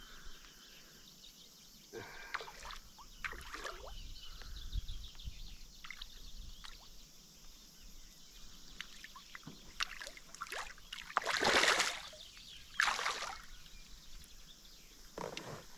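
A hooked brown trout splashing and thrashing at the lake surface beside a canoe while it is played on a fly rod, with scattered small knocks and water sounds. The biggest splash comes about three-quarters of the way through.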